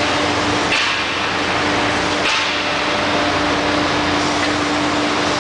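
Steady mechanical running noise with a constant low hum from a silkscreen printing machine, with two short hisses about one and two seconds in.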